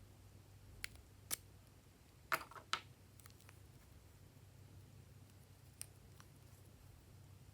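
Close-up handling sounds of slime-making: a few sharp clicks and crackles over a low steady hum. The loudest is a short cluster of clicks about two and a half seconds in, with single clicks around one second and near six seconds.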